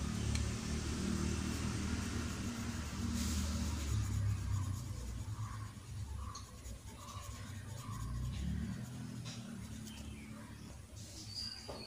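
Colored pencil scratching on card paper in short strokes as a stripe is shaded in, over a steady low background rumble that fades about nine seconds in.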